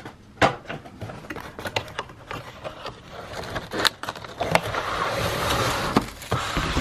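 Unboxing noise: cardboard flaps scraping and knocking as the box is handled, then, a little past halfway, a longer crinkly rustle of a white foam packing sheet being pulled out from around the toy.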